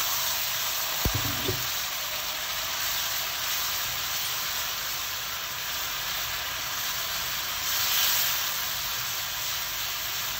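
Wet onion-tomato masala sizzling steadily in a hot nonstick pan as a little water cooks off, stirred with a silicone spatula. A light knock about a second in.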